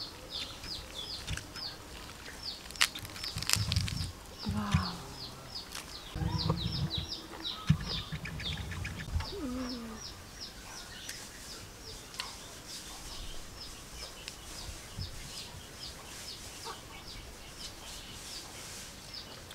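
Small birds chirping in a steady run of short high notes, two or three a second, throughout. In the first half come a few sharp clicks and low thuds from hands and dishes at the table.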